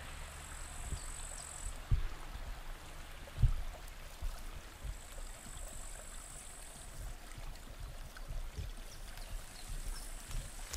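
The infant Ruhr, a small rivulet near its source, trickling steadily. A few low thumps stand out, the loudest about two and three and a half seconds in, and a faint high hiss comes and goes three times.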